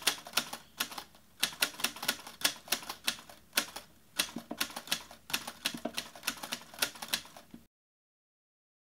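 Typing sound effect: a quick, uneven run of key clicks in short bursts with brief pauses, cutting off suddenly near the end.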